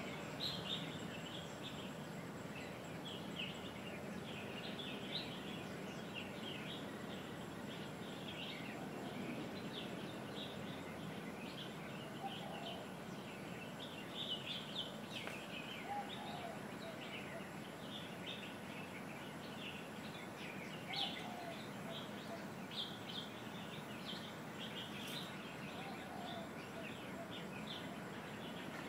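Many small birds chirping continuously, with a few lower, short calls now and then, over steady outdoor background noise.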